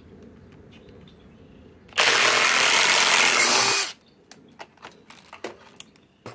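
Two Skil PowerCore 20 impact drivers, a Gen 1 and a Halo Light, running together in reverse and backing screws out of wood, for about two seconds starting about two seconds in. A few light clicks follow.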